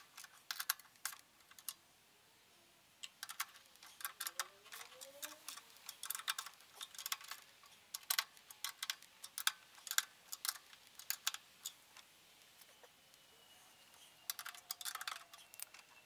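Bursts of quick, light clicking from a ratchet wrench working fasteners on the pool heater during reassembly, in several clusters with short pauses between.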